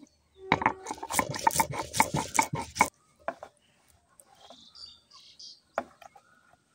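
Spices being ground and scraped into a wet paste on a flat stone grinding slab (sil-batta): rough rubbing strokes for about two and a half seconds. Faint bird chirps follow.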